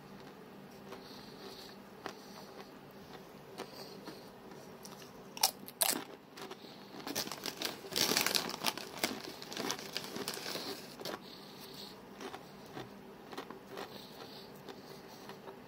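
A person biting into a seasoned tortilla chip: two sharp crunches about five and a half seconds in, then several seconds of loud crunching as it is chewed, easing off to softer chewing.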